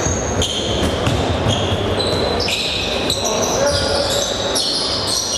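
Basketball being dribbled on a hardwood gym court, with players' sneakers squeaking in short, high squeals again and again, over the murmur of voices in the hall.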